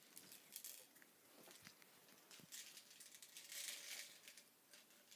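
Faint handling noises: soft rustling and a few small clicks as hands work a plastic pellet bottle and a pellet gun, with the loudest rustling about three to four seconds in.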